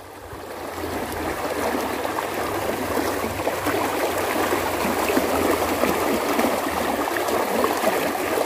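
Water rushing in a fast-flowing irrigation ditch, running over small riffles; it grows louder over the first couple of seconds, then holds steady.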